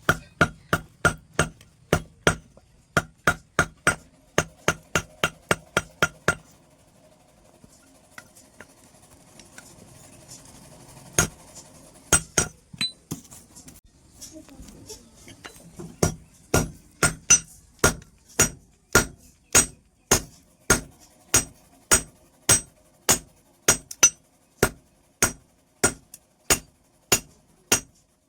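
Blacksmith's hammer striking metal in a steady rhythm of about two blows a second, each blow with a short metallic ring. The hammering stops for about ten seconds in the middle, with one lone blow during the pause, then resumes at the same pace.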